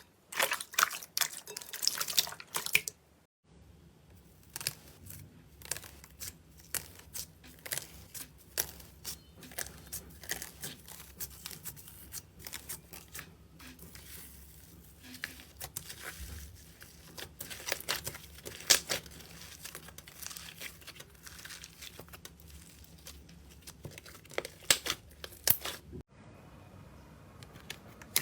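Slime being handled, squeezed and pulled apart, making sticky crackling, popping and tearing sounds in irregular bursts. The sound cuts off abruptly about three seconds in and again near the end, where one clip gives way to another.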